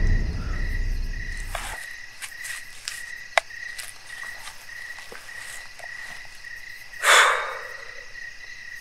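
Crickets trilling steadily in the grass at night, one continuous high note. A low rumble dies away over the first couple of seconds, there are a few small clicks, and a short rustling burst comes about seven seconds in.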